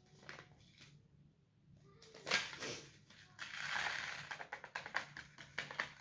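A paper seed packet rustling and crinkling as it is torn open and lupin seeds are shaken out of it onto damp toilet paper. There are small scattered ticks, a short crinkle about two seconds in, and a longer rustle about halfway through.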